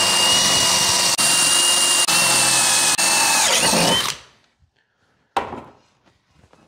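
DeWalt cordless drill with a quarter-inch bit boring through a metal plank: a loud, steady whine broken by three very brief pauses, which wavers and cuts off about four seconds in. A single short knock follows near the end.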